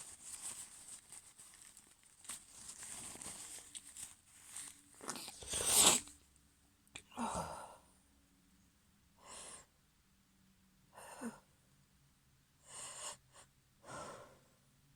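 A woman's allergy sneezes: breathy build-up, then one loud sneeze about six seconds in, followed by several shorter, quieter breathy bursts.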